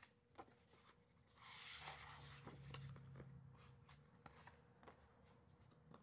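Paper page of a hardcover picture book being turned by hand, a soft swish about a second and a half in, with small paper rustles and taps around it as the book is laid open. Faint.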